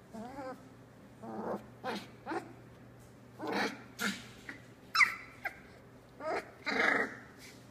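Three-week-old Australian Labradoodle puppies play-fighting, giving a string of about ten short growls, whines and yips. The sharpest yip comes about five seconds in.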